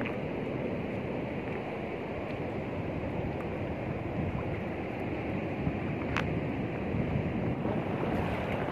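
Sea waves striking hard against shoreline rocks: a steady rush of surf. A short sharp click comes about six seconds in.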